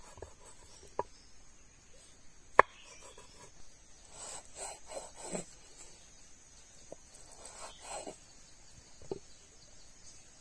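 A kitchen knife striking a wooden cutting board sharply twice, the second strike the loudest, then scraping and rubbing on the board as the cut pieces are handled. A steady high insect drone runs behind.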